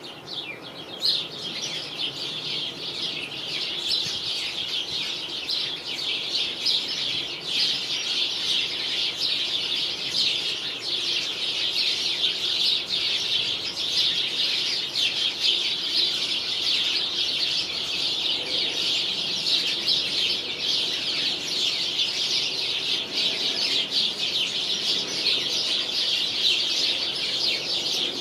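A flock of house sparrows chirping together in a dense, unbroken chatter of many overlapping short chirps, swelling in loudness over the first few seconds and then holding steady.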